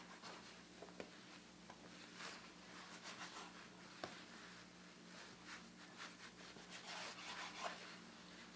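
Faint scraping of a plastic dough scraper cutting through soft yeast dough on a bamboo cutting board, with a few light clicks as its edge meets the wood.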